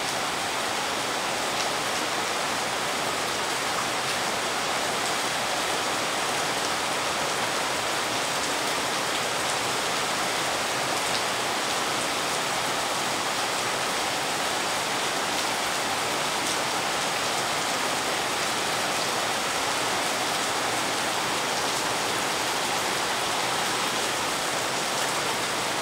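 Heavy rain pouring steadily, an even hiss.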